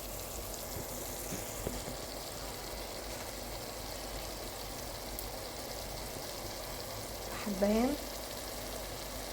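Chopped onion sizzling steadily in hot ghee and oil in a pan.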